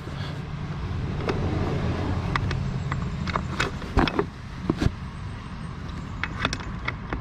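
Hand tools clinking on metal fittings: irregular sharp clicks and knocks, a few louder ones about four to five seconds in, over a steady low hum.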